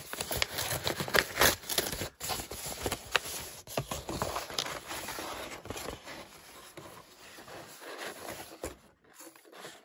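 Kraft packing paper rustling and crinkling as it is pulled aside and handled, with many sharp crackles. The rustling dies down over the second half.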